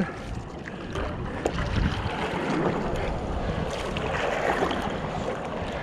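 Sea water sloshing and splashing around a stand-up paddleboard as it is paddled, with wind rumbling on the microphone.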